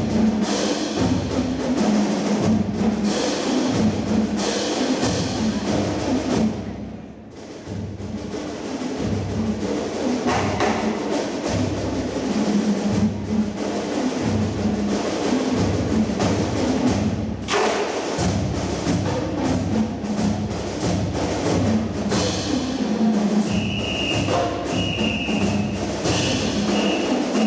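Marching band music with drums and percussion keeping a steady beat. The music drops off briefly about seven seconds in. Near the end a short high tone sounds three times over the band.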